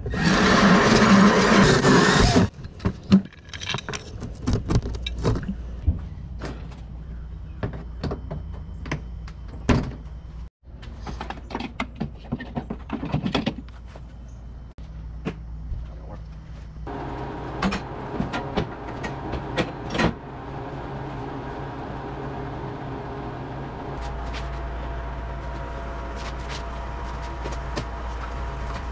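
A drill turning a hole saw cuts through a white golf cart body panel for about two seconds, then stops. After it come scattered clicks and knocks of hand work, and a steady hum with faint tones in the second half.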